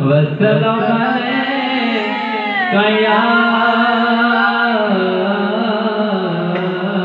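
A man singing a naat (devotional praise song for the Prophet) into a handheld microphone, in long held phrases with winding, ornamented pitch glides.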